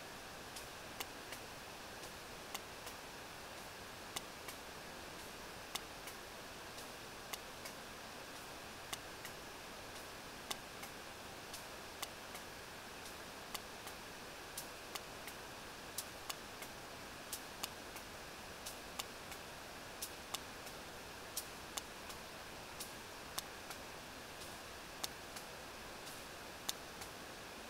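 Sperm whale echolocation clicks recorded on a deep-water hydrophone: sharp clicks about one to two a second over a steady background hiss. These regular clicks are the sign of a whale foraging at depth.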